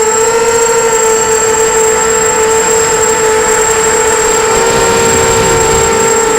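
A 250-size FPV quadcopter's brushless motors whining at a steady throttle, holding one pitch with slight wavering.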